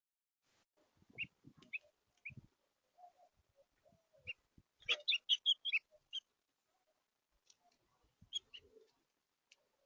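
Small birds at a feeder chirping in short, scattered calls, with a quick run of about eight loud chirps around five seconds in and a few lower notes between them. There are some soft low knocks as well.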